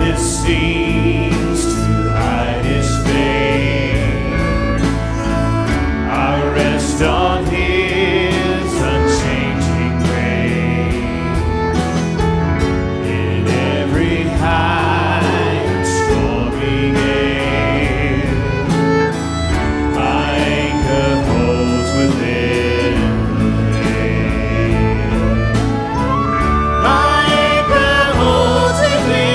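A woman singing a worship song, backed by a live band that includes violin.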